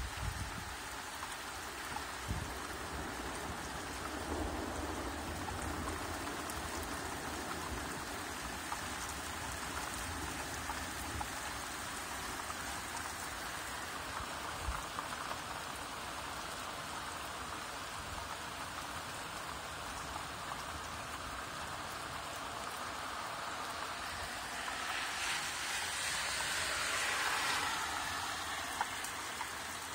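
Steady rain falling: a constant hiss with a few low knocks of drops. Near the end a louder swell of hiss builds and fades over a few seconds.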